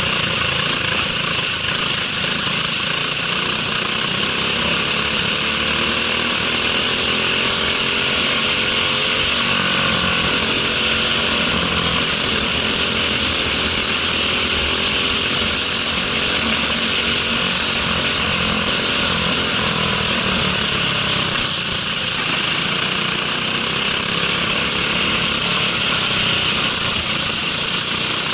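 Briggs & Stratton LO206 four-stroke single-cylinder kart engine running hard at race speed, heard on board. Its pitch rises and falls slowly with the throttle through the corners, under a steady rush of wind noise.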